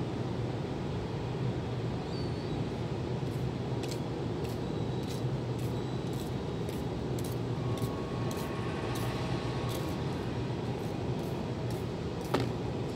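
Steady low machinery hum from the industrial plant across the water, with faint quick ticks over it and one sharp knock near the end.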